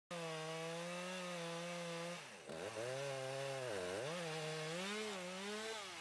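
Two-stroke gas chainsaw running at high speed while cutting into a pine trunk during the felling cut. Its pitch sags twice, a little after two seconds and again around four seconds, and comes back up each time.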